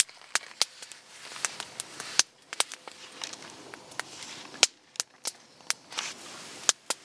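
Campfire crackling, with sharp, irregular pops from the burning wood.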